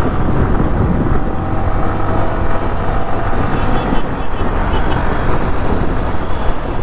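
Motorcycle riding at highway speed: steady, loud wind and road noise with the engine's drone underneath.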